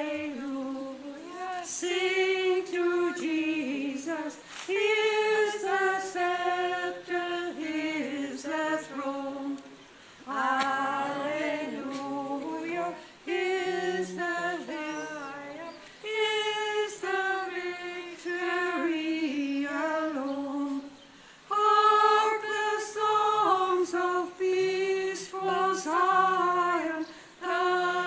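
Unaccompanied singing of a hymn at the opening of a Catholic mass. The singing goes in phrases of a few seconds, with short breaks for breath between them.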